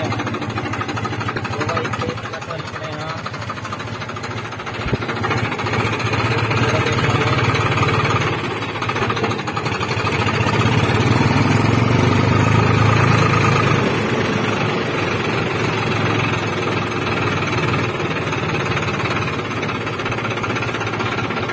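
Farmtrac tractor's diesel engine running as the tractor drives, its note picking up about five seconds in and growing louder for a few seconds around the middle before easing back.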